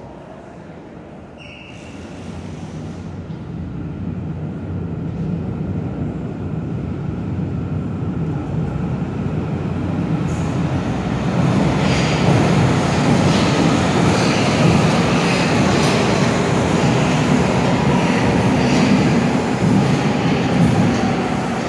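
Hamburg U-Bahn train pulling into an underground station. Its rumble grows steadily louder over the first dozen seconds, then stays loud with a thin wheel squeal as the cars run along the platform.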